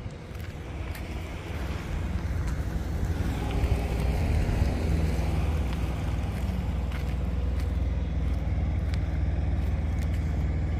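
A large vehicle's engine idling steadily, growing louder about two seconds in and then holding even.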